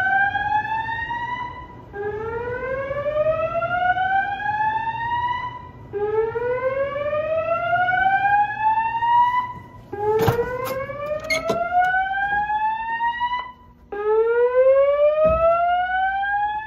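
Building fire alarm sounding a repeating whoop evacuation tone: a rising sweep of about three and a half seconds, starting again every four seconds. A short clatter of knocks comes about ten seconds in.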